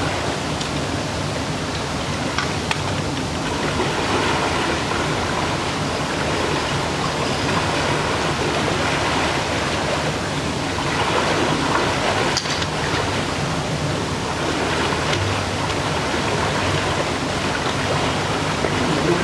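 Fast-flowing river water rushing through choppy shallows beside a concrete wall, a steady, even rush.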